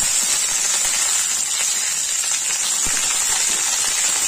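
Mustard oil sizzling in a kadai with dried red chillies, curry leaves and freshly added black mustard seeds, frying a tadka: a steady high hiss.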